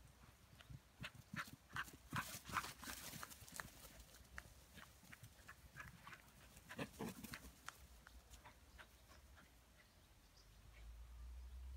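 Irish terrier puppies running through grass: faint, quick runs of soft paw-falls in two spells, about a second in and again about six seconds in, with one louder thump among them.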